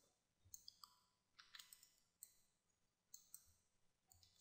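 Near silence with a few faint clicks from a computer mouse and keyboard, scattered irregularly.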